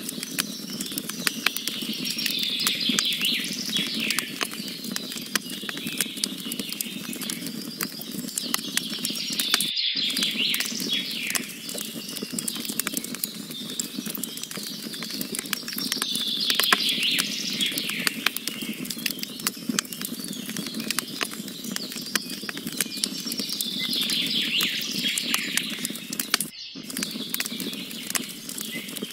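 Wood campfire crackling with rapid, irregular sharp pops. A songbird sings a short phrase every several seconds, and the whole sound cuts out for an instant twice.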